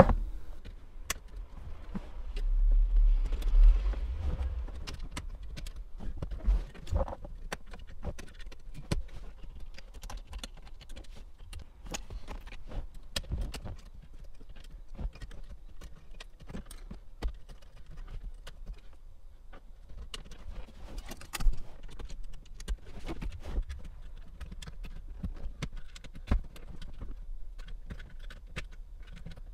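Scattered small clicks and taps of radio removal keys being worked into the release clips of a factory head unit and its plastic dash surround, with a low rumble about two to four seconds in.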